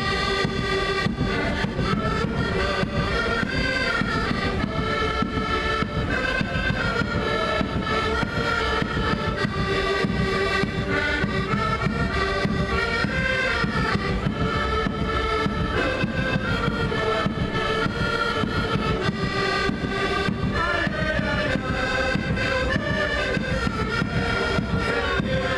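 A group of accordions playing a tune together, with many notes held and moving at once, without a break.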